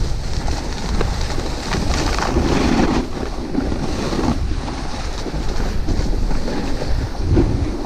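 Snowboard sliding over hard, icy snow, its base and edges scraping in a steady rushing hiss with many short scrapes, mixed with wind rushing on the microphone.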